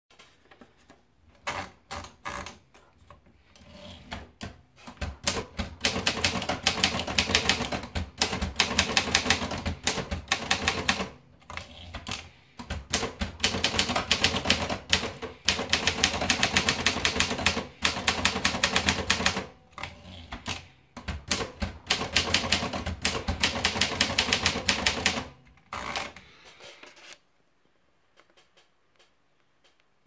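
Optima Elite manual portable typewriter: scattered clicks as the paper is wound in, then three long runs of rapid key strikes, one for each typed line, with short breaks between them for the carriage return. The typing stops a few seconds before the end.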